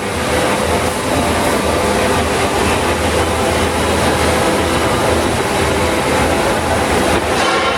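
Oxy-fuel cutting torch running steadily through thick steel, a loud continuous rushing hiss with a faint hum underneath.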